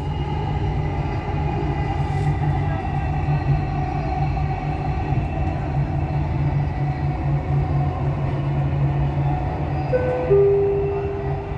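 Cabin sound of a driverless Dubai Metro Red Line train running along elevated track: a steady rumble with a low hum. About ten seconds in, a two-note chime steps down in pitch, the signal that an onboard announcement is coming.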